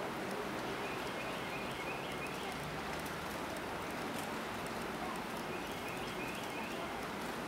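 Outdoor background: a steady hiss with a small bird chirping in the distance, two short runs of about four quick high notes, about a second and a half in and again about six seconds in.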